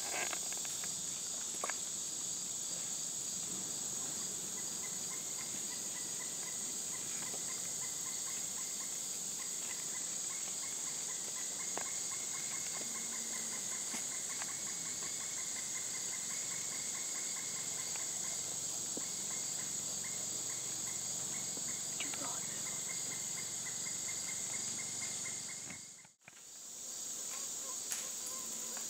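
Woodland insect chorus: a steady, high-pitched shrill, joined a few seconds in by a second insect's rapid, evenly pulsed lower trill. The sound drops out for a moment near the end.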